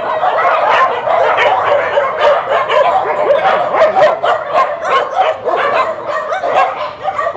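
Many dogs barking and yapping at once, their barks overlapping without a break.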